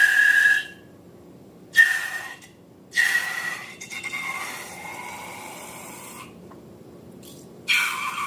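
Air hissing out through a balloon's neck in four spurts, each with a squeal. The third spurt is the longest, about three seconds.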